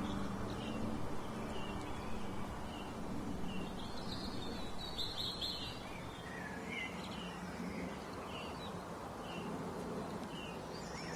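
Small birds chirping: short high calls repeated every second or so, with a denser flurry about five seconds in, over a steady outdoor hiss.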